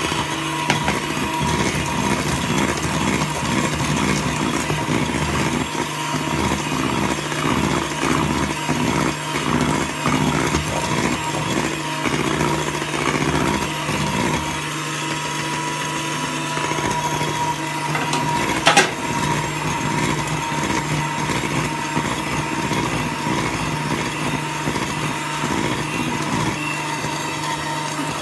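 Electric hand mixer running steadily, its beaters working sifted flour and cocoa powder into brownie batter in a steel bowl. A single sharp knock about two-thirds of the way through.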